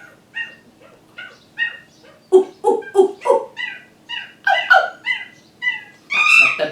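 Seagulls calling: a run of short, repeated cries about two or three a second, faint at first and louder from about two seconds in, breaking into long, loud screeching near the end.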